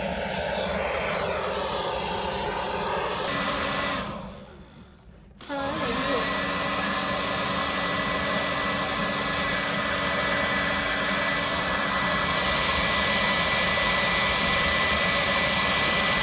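Hair dryer blowing air through a pipe into the charcoal of a homemade forge: a steady rush of air. It cuts out for about a second and a half around four seconds in, then comes back with a steady high whine.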